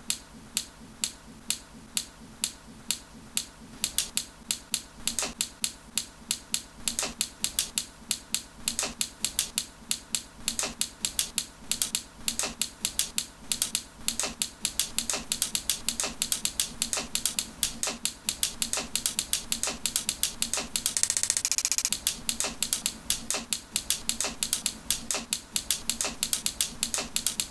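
Hair-cutting scissors snipping close by in a long, steady run while thinning a baby's bangs: about two snips a second at first, quickening to three or four a second after a few seconds.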